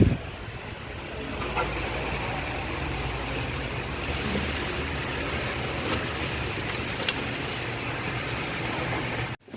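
Hyundai Elite i20 car engine idling steadily, cutting off abruptly near the end.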